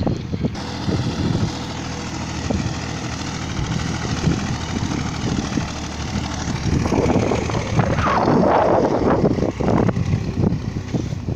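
Diesel engine of an excavator or tractor running steadily with a low hum. From about two-thirds of the way in, a louder, rougher stretch lasts about three seconds.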